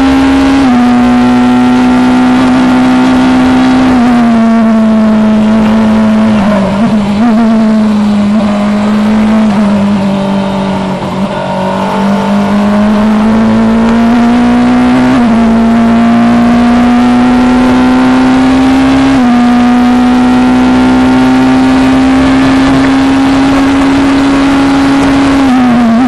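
Onboard sound of a Formula Two single-seater's Audi-based 1.8-litre turbocharged four-cylinder engine running near full revs. The pitch holds nearly level with a few sudden small jumps at gear changes, and drops and wavers through a corner about a third of the way in.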